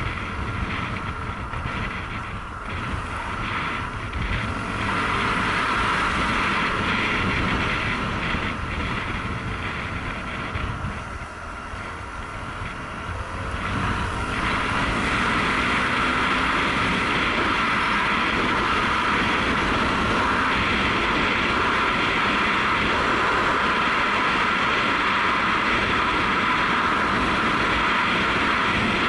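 Honda CRF250L's single-cylinder four-stroke engine running at road speed, with wind rushing over a helmet-mounted microphone. The roar eases twice, then runs louder and steady from about fourteen seconds in.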